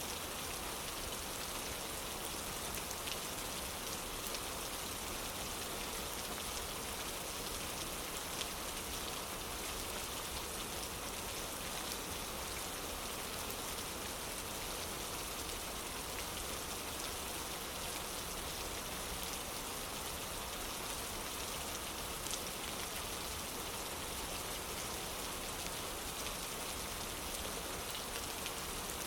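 Steady rain falling on a wooden porch, an even hiss with a few faint, sharp ticks now and then.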